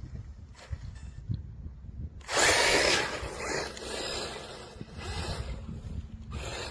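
A DEERC 1/18 electric RC truck driving over rough ground, its motor and tyres making a loud rush of noise about two seconds in, then running on more quietly.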